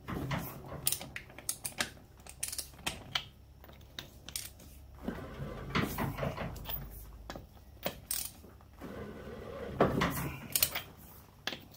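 Socket ratchet clicking in quick runs as the wheel nuts are undone on an ATV's rear wheel.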